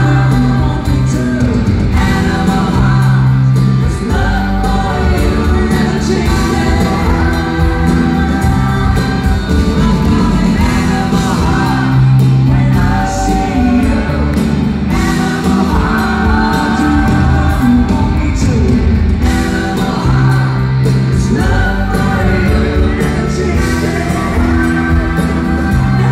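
Live pop-rock band playing: a male lead singer sings through a handheld microphone over electric guitar and the rest of the band, loud and continuous.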